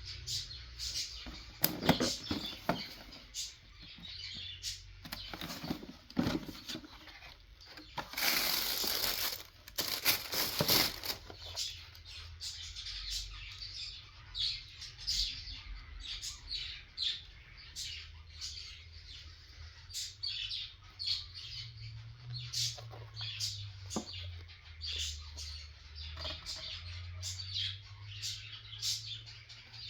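Cardboard sneaker box and paper wrapping handled and rustled: many short taps and crinkles, with two longer, louder bursts of rustling about eight and ten seconds in.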